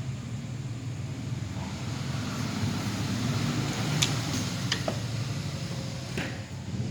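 Steady low vehicle-like rumble, with a few sharp clicks about four seconds in and again near six seconds.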